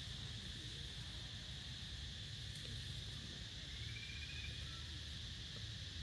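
Steady, unbroken high-pitched insect chorus, with a low rumble underneath.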